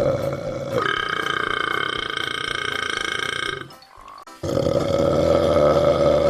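Two long, drawn-out burps with a pause between. The first runs for nearly four seconds and shifts pitch near its start; the second begins just after the halfway point and is still going at the end.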